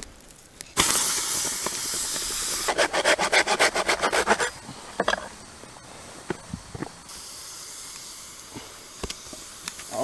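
Hot stone dropped into water in a birch-bark container: a sudden loud hiss of steam about a second in, breaking into a rapid sputter for a couple of seconds, then settling to a fainter hiss.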